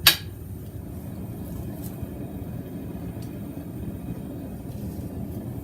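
One sharp clank right at the start, then a steady low rumble of shop noise with a couple of faint clicks.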